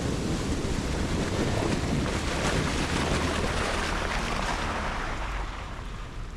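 Jeep Wrangler JK driving on a slushy trail: a steady rushing of tyres through wet slush with a low rumble and wind on the microphone.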